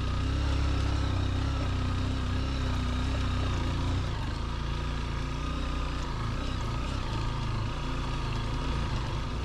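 Honda XR150L's single-cylinder four-stroke engine running at a steady pace under load as the bike climbs a loose, rutted dirt track.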